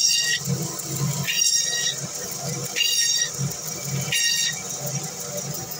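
Electric band saw running with a steady low motor hum, its blade giving a high whine four times, about every second and a half, as it cuts through a fish slice by slice.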